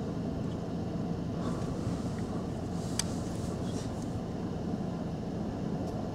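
Steady low rumble of a car on the road, with one sharp click about three seconds in.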